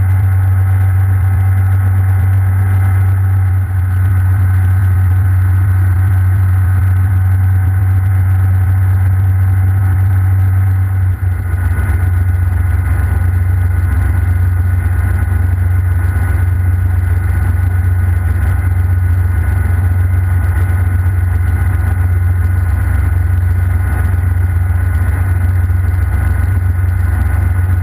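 Hughes 269B light helicopter heard from inside its cabin during takeoff and climb-out: its four-cylinder Lycoming piston engine and rotors give a steady low drone with a faint whine above it. The drone deepens about eleven seconds in.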